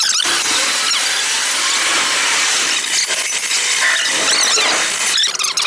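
Steady, harsh, hissing metalworking noise that starts just after the opening and breaks off about five seconds in.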